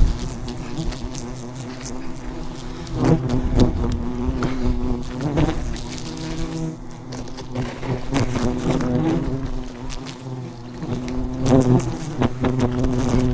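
A swarm of giant honey bees buzzing steadily around their hive, a dense droning hum that swells louder about three seconds in and again near the end.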